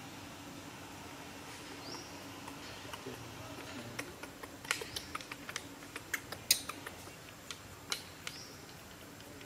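A quick, irregular run of sharp clicks and snaps, a dozen or so between about four and eight seconds in, over a faint steady background. A short high rising chirp comes about two seconds in and again near the end.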